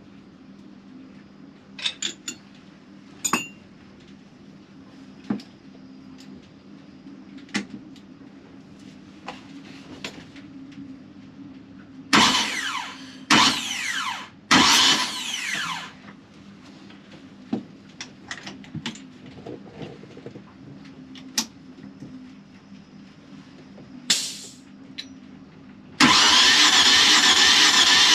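Sailboat's two-cylinder diesel engine turned over by its starter motor in three short bursts about 12 seconds in, then one longer steady crank near the end, during a compression test. The engine does not fire: its compression is well below spec.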